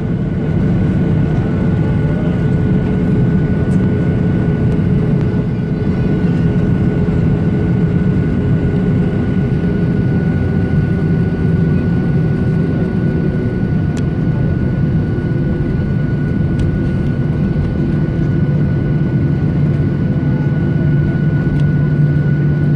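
Boeing 737 jet engines at low taxi power, heard from inside the cabin: a steady low rumble with a thin, constant high whine over it.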